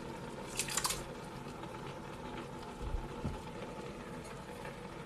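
Canned diced tomatoes being poured and scraped with a silicone spatula into a stainless steel pot, a wet, squishing slide. A brief cluster of clicks from the spatula against the can comes a little under a second in, and two soft thumps come around three seconds in.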